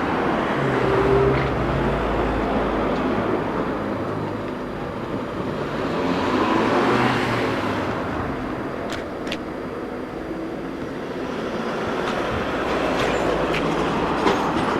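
Steady rumble of passing vehicles, swelling twice as something goes by, with a few sharp clicks near the end.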